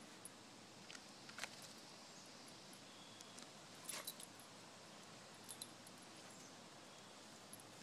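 Near silence with a few faint scuffs and clicks, the loudest about four seconds in, as a wire fox terrier paws and noses at a painted turtle's shell.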